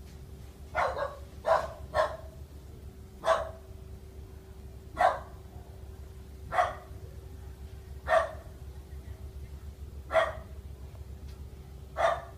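A dog barking: single short barks, about nine of them, one every one to two seconds.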